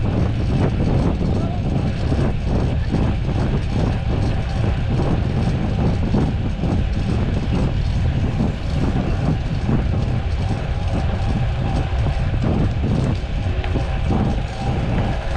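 Wind buffeting the microphone, a steady low rumble with irregular gusts, as from a camera moving through the air on a ride.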